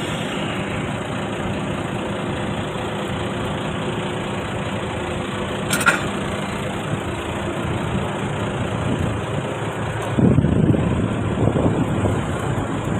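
Heavy diesel engine of a crawler piling rig running steadily, with one sharp click about six seconds in and a rougher, louder stretch from about ten seconds on.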